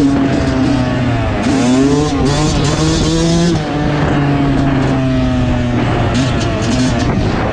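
Yamaha YZ250 two-stroke dirt bike engine running under way, its pitch rising on the throttle about a second and a half in and dropping back about two seconds later, with a steadier lower engine note beneath and wind noise on the microphone.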